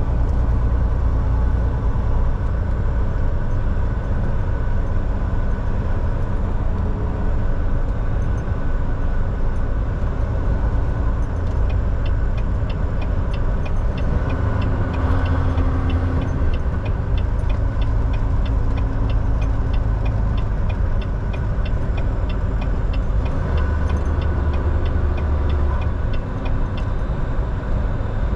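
Volvo VNL 760 semi-truck driving at a steady pace: a constant low engine drone with road noise. Through the middle stretch, for about fourteen seconds, a light, even ticking runs at roughly two to three ticks a second.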